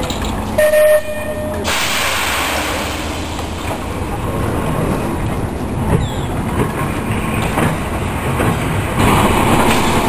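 Manx Electric Railway tram rolling on the rails during gravity shunting, with a steady rumble and clatter of wheels on track. There is a brief loud squeal about half a second in, and the running gets louder near the end.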